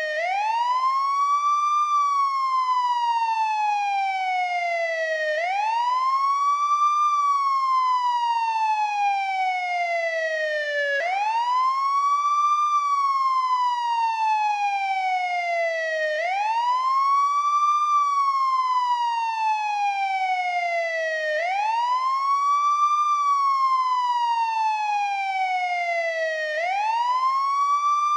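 American police siren sounding the wail: each cycle rises quickly in pitch and then falls slowly, repeating about every five seconds.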